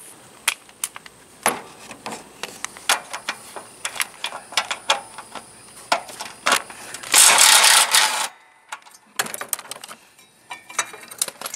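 Hand ratchet and socket clicking and clinking against metal as a small bolt is backed out of the mower's frame. About seven seconds in comes a louder, dense burst of noise lasting about a second.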